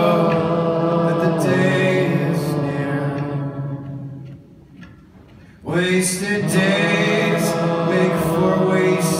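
Large concert audience singing along in unison, holding long sung notes. The singing trails off about four and a half seconds in, and the crowd comes back in strongly about a second later.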